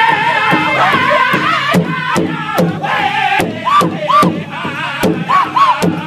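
Powwow drum group singing together in high voices around a large hide drum, striking it in a steady beat of about two to three strokes a second. In the second half, short high rising-and-falling cries ride over the singing.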